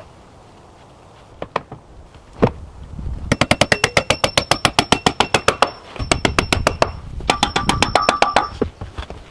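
A couple of single knocks, then rapid, evenly spaced metallic clicking at about ten clicks a second in three bursts of one to two seconds each, with a faint ringing tone under the clicks.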